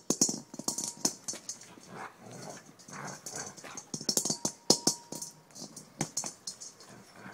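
Border collie growling and whining in play, with many short sharp knocks as the ball is kicked and nosed about.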